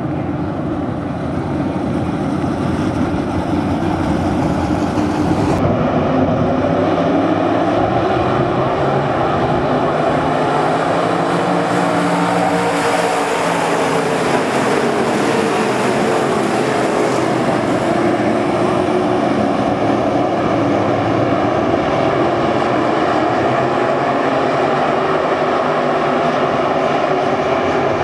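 Dirt-track race cars running at speed around an oval, several engines at once. Their pitch rises and falls as cars pass, most clearly about halfway through.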